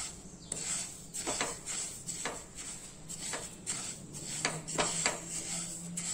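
Dry niger seeds being stirred in a nonstick pan with a wooden spatula: repeated, irregular scraping and shuffling strokes as the spatula pushes the seeds across the pan.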